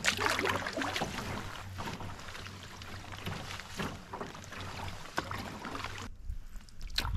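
Wooden canoe paddle strokes pulling through lake water, a splash and swish about once a second over a steady hiss of wind and water. About six seconds in the sound drops away abruptly, and one sharp click follows near the end.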